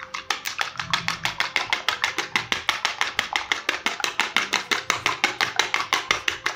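A metal fork beating a raw egg in a plastic bowl: fast, even clicking taps, about seven a second, as the fork strikes the bowl.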